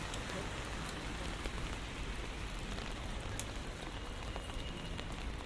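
Steady rain falling on a city street, an even hiss with scattered single drops ticking.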